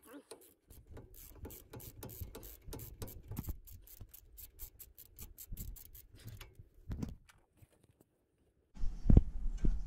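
Hand ratchet clicking fast and evenly as a brake caliper mount bolt is spun out, a few clicks a second for about six seconds. Near the end comes a louder thump with rustling as parts are handled.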